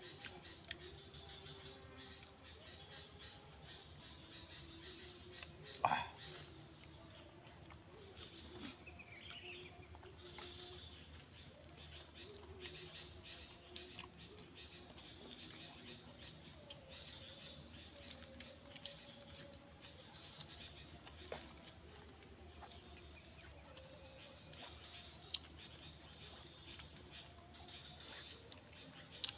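Insects chirring in a steady, unbroken high-pitched drone, with a few faint scattered clicks over it.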